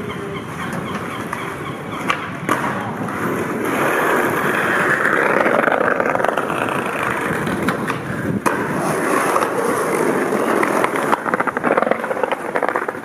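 Skateboard wheels rolling over stone paving, swelling louder a few seconds in as the board comes closer, with a few sharp clacks of the board.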